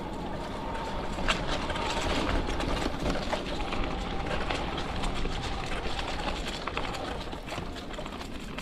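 A 750-watt kit e-bike riding along a dirt trail: a steady rush of tyre and wind noise with low rumble, a faint thin whine from the electric motor, and a few small knocks.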